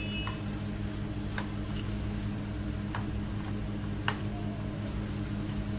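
Grated carrot, onion and herbs being mixed by hand in a steel bowl: soft rustling with a few light clicks of fingers against the metal, the sharpest about four seconds in, over a steady low hum.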